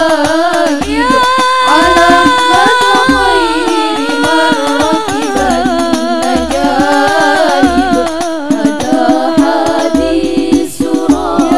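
Female vocal group singing a sholawat in unison, with long held notes bending through ornamented phrases, over hadrah banjari frame drums keeping a steady beat.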